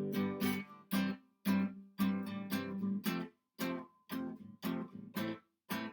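Acoustic guitar strumming chords in a steady rhythm, about two strums a second with short breaks between them.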